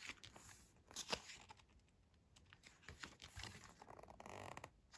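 Faint rustling and soft flaps of glossy photobook pages being turned by hand. There are a few brief papery sounds about a second in, and a short rustle around three to four seconds in.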